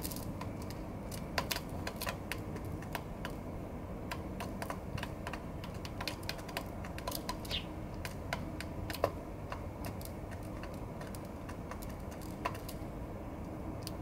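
Eurasian tree sparrows pecking rice from a wooden feeder tray and milk carton: quick, irregular beak taps, many in the first nine seconds or so and only a few near the end, over a steady low background noise.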